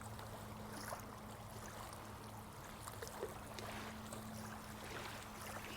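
Faint flowing, trickling water with small scattered drips and splashes, over a steady low hum.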